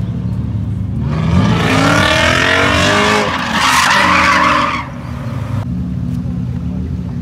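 A BMW E34 saloon drifting: its engine revs up with rising pitch, then its tyres squeal loudly for over a second as the car slides. The screech cuts off just before five seconds in, leaving a car engine idling steadily.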